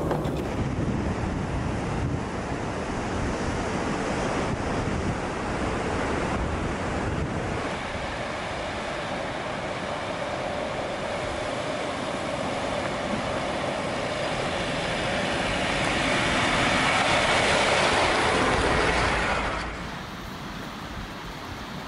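Steady rushing noise, with low vehicle and wind rumble at first. Later it gives way to a brighter, louder rush like a fast river running over rocks. This cuts off suddenly near the end, leaving a quieter hiss.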